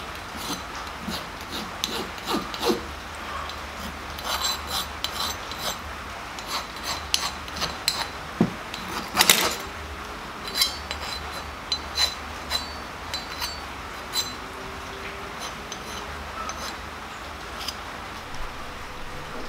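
Small hand file scraping along the edges of machined billet 6061 aluminium brackets in short, irregular strokes, with sharp metallic clinks as the part is handled, over a steady low hum.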